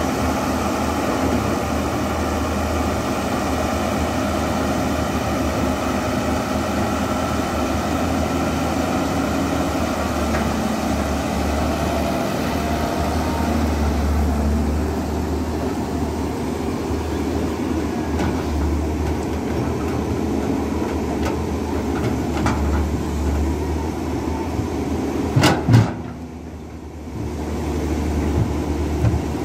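CAT E200B crawler excavator's diesel engine running steadily under working load, with a few sharp knocks near the end.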